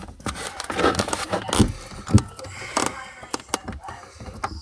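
Irregular clicks, taps and knocks of hands handling the refrigerator's plastic parts, with the loudest knock about two seconds in.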